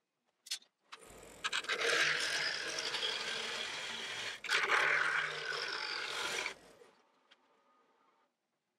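Wood lathe spinning a square green-maple bowl blank while a bowl gouge cuts the wet wood: a loud, rough cutting noise over a low motor hum. It starts about a second in, breaks off briefly midway, and stops at about six and a half seconds when the lathe is shut off.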